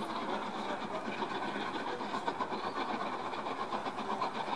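Steam locomotive working a train of coaches, its exhaust beating in a quick, even rhythm as it approaches.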